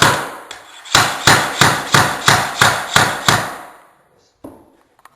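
Hammer striking a Pergo installation tool set against a laminate plank, a quick run of sharp knocks about three a second, tapping the plank's tongue into the neighbouring plank to lock the joint. One knock, a short pause, then about eight more, stopping a little after three seconds in.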